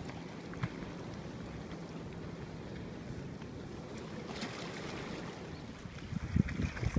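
Steady wash of sea water and surf around the jetty rocks. From about six seconds in, wind gusts buffet the microphone in low rumbles.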